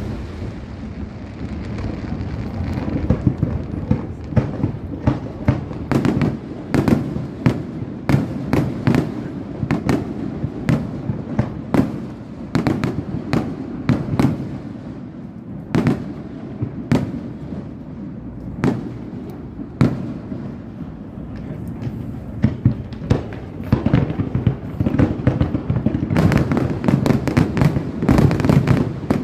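Fireworks display finale: aerial shells bursting in a rapid run of sharp bangs over a continuous low rumble, thickening into a dense barrage near the end.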